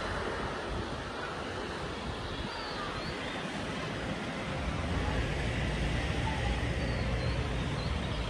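Steady outdoor noise with wind rumbling on the microphone, the low rumble growing stronger about five seconds in.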